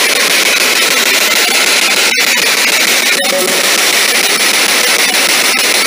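Spirit box scanning radio stations, playing loud steady static hiss through a small portable speaker, broken by a couple of brief dropouts about two and three seconds in.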